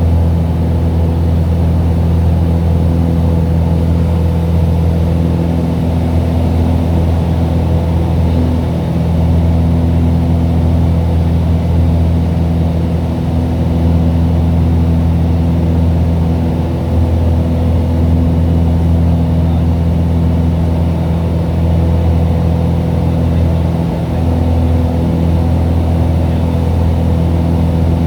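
Cessna 182's piston engine and propeller droning steadily in flight, heard from inside the cabin: a loud, even, low drone with a constant pitch.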